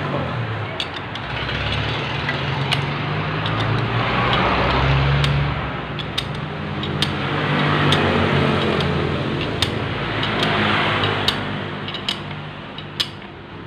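Light metal clinks and taps of a wrench and steel parts as a scooter's CVT driven pulley and clutch assembly is put back together by hand, about ten separate clicks. Under them, an engine running in the background with a steady low hum that swells about four to five seconds in.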